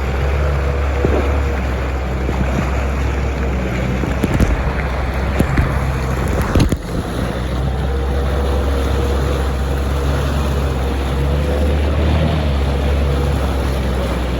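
Jet ski engine running steadily, a low drone under heavy wind rush on the microphone, with a couple of sharp knocks about four and a half and seven seconds in.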